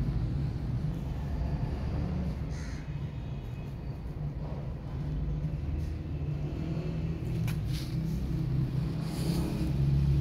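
Steady low outdoor rumble, with a couple of sharp clicks about three-quarters of the way through.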